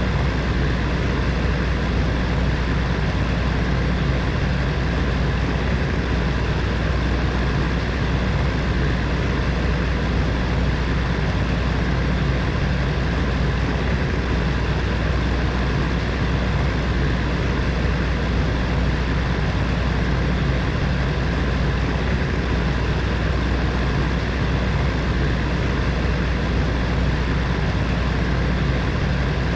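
Heater fan running steadily: an even whoosh of blown air over a low motor hum with faint steady tones.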